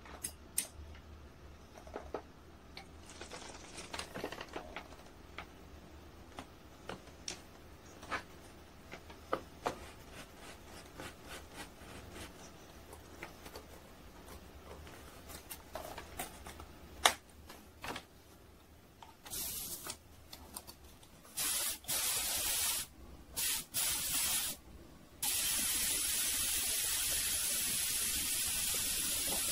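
Light clicks and knocks of parts being handled, then a compressed-air paint sprayer hissing in several short bursts about two-thirds of the way in, settling into a steady hiss near the end.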